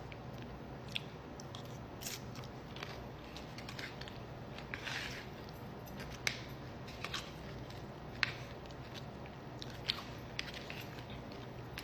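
Close-up eating sounds of Doritos nachos being bitten and chewed: irregular sharp crunches with wet chewing between them, and a longer run of crunching about five seconds in.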